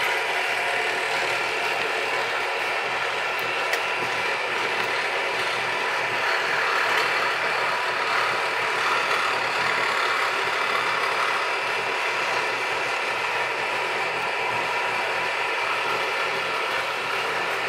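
Steady mechanical room noise: a continuous hum and hiss with several held tones and no distinct events.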